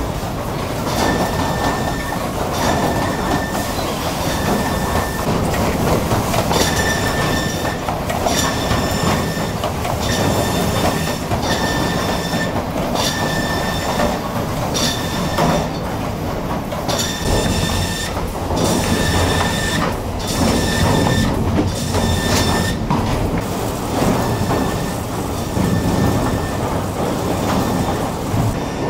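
Sawmill machinery running: conveyors and rollers clattering steadily, with a short high squeal repeating about once a second.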